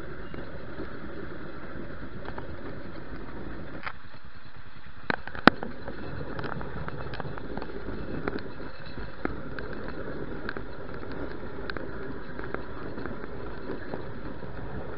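Narrow-gauge railway carriage running along the track: a steady rumble of wheels on rail, with scattered sharp clicks and knocks, the loudest about five and a half seconds in.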